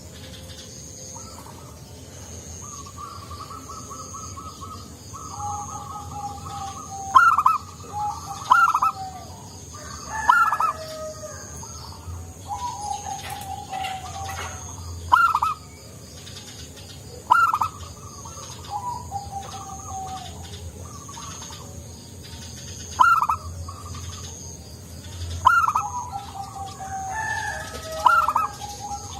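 Zebra dove (perkutut) singing its cooing song over and over: rapid trilled coos, each phrase marked by sharp up-sweeping loud notes, repeated every few seconds.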